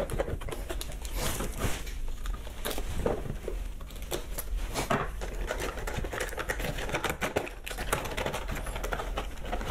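Stiff clear plastic packaging being pried and cut open by hand, with irregular crinkling and clicking of the plastic.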